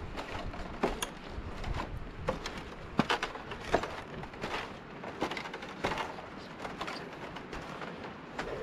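Footsteps on a bamboo walkway: bamboo poles knocking and clicking irregularly underfoot, a few sharper knocks standing out.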